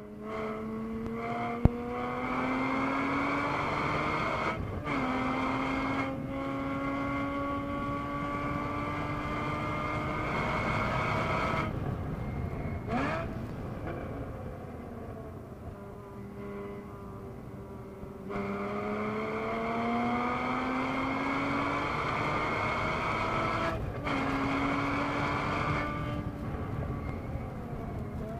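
Porsche 981 Boxster S flat-six engine heard from inside the cabin, pulling hard in third gear with its pitch rising. The climb is broken by brief throttle lifts, a longer lift about twelve seconds in, and another rising pull later on. Steady tyre and road noise runs underneath.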